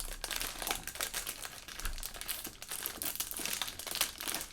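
Plastic LEGO parts bag crinkling as the pieces are dumped out of it, with many small clicks from the plastic bricks.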